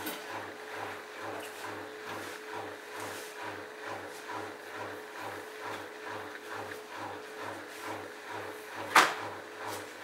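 Bosch front-loading washing machine on its rinse cycle: the drum turns with a steady motor hum and a low rhythmic pulse about two to three times a second. A single sharp knock about nine seconds in is the loudest sound.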